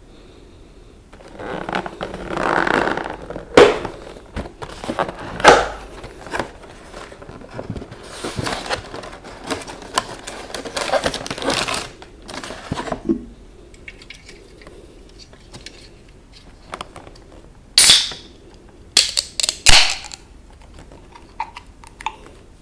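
Handling of take-out fried chicken packaging and food: irregular rustles, sharp clicks and crackles, with a few loud crinkling bursts near the end.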